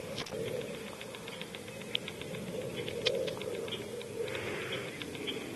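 Irregular rapid small clicks and ticks, several a second, over a steady low hum.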